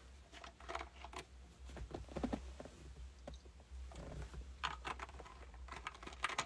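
Faint typing: a scatter of light, irregular finger taps and clicks, over a low steady hum.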